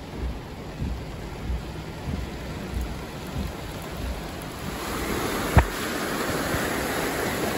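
Rain and a low rumble heard from inside a car, giving way about five seconds in to the steady, louder rush of fast-flowing brown floodwater from an overflowing creek. There is a single sharp knock shortly after the water sound begins.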